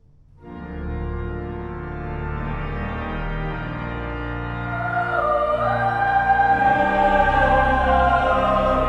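Church music of organ and choir begins about half a second in with sustained chords over low bass notes, growing louder as a higher melody line enters around five seconds in.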